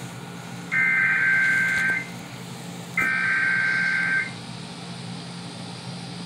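Emergency Alert System SAME header: two bursts of harsh, buzzy digital data tones, each lasting just over a second with about a second's gap between them, ending a little past the middle. These are the last of the three repeated header bursts that encode the alert's event type, areas and valid time. A low steady hum runs underneath.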